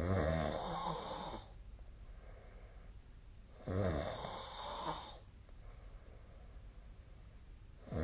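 A sleeping person snoring: two snores, each about a second and a half long and about four seconds apart, with quiet breathing between them and the next snore starting right at the end.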